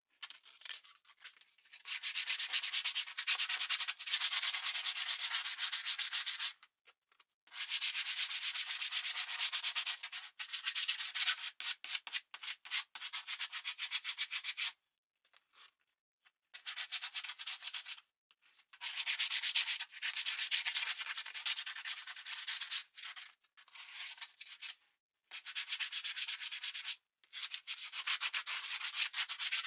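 Sandpaper rubbed by hand over a small block of scrap wood: quick back-and-forth strokes in runs of a few seconds, with short pauses between runs.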